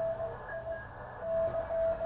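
Morse code (CW) heard from a ham radio receiver as a single steady mid-pitched tone keyed into dots and dashes, with a short pause about a second in, over the receiver's hiss.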